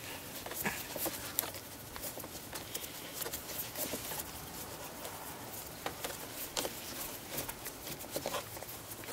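A Torx T20 screwdriver being turned to back a long screw out of a plastic engine air filter housing lid, giving faint, irregular small clicks and scrapes.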